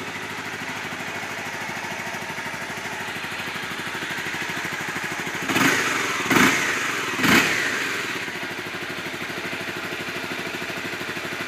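Honda CBR250R's 250cc single-cylinder four-stroke fuel-injected engine idling steadily, blipped three times in quick succession about halfway through before settling back to idle.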